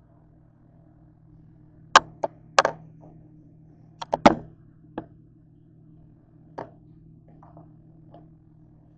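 Sharp clacks and knocks from handling an electric grill and its lid: a quick cluster about two seconds in, a louder one about four seconds in, then a few softer single knocks. A low steady hum runs underneath.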